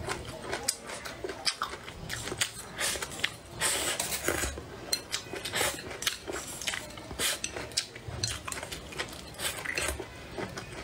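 Chopsticks clicking and scraping against a ceramic plate many times at an uneven pace, with close-up eating and chewing noises between the clicks.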